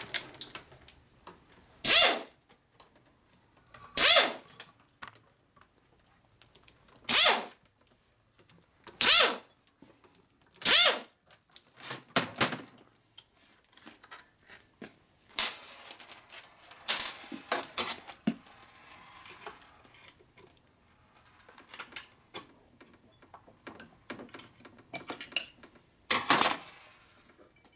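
Handheld air tool on a coiled shop air hose running in repeated short bursts, each well under a second, some with a high wavering whine, with quieter metal clinks between them.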